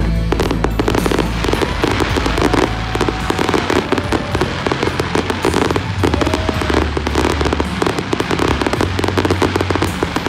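Aerial fireworks shells bursting in a dense, rapid run of bangs and crackles as a show's barrage of glittering bursts goes off.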